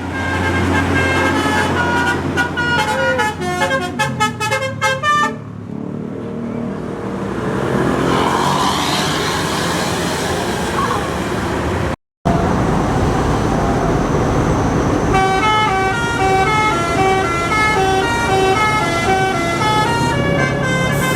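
Tour bus telolet horns playing quick melodies of stepping notes. The first tune breaks off after about five seconds into steady bus engine and tyre noise as the bus goes by. After a sudden cut, another telolet horn tune starts in the second half.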